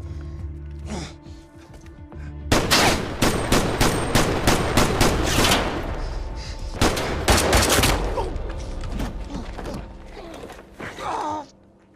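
Heavy automatic gunfire, several weapons firing rapid overlapping shots, starting about two and a half seconds in under low, droning film music. The fire breaks off briefly, comes back in a second dense burst, then dies away with echoes.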